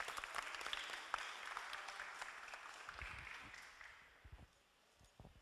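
Audience applauding, the clapping dying away about four seconds in, followed by a few faint low thumps.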